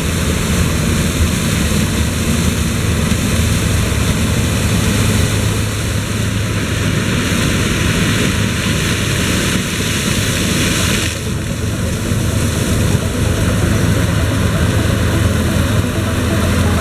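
New Holland CX 8050 combine harvester running steadily while harvesting corn, a low engine drone with a broad mechanical hiss that eases about eleven seconds in.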